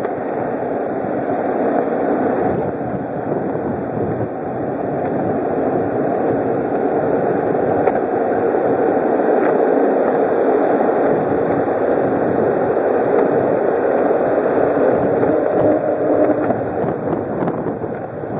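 Longboard wheels rolling over rough asphalt: a continuous, steady rumble.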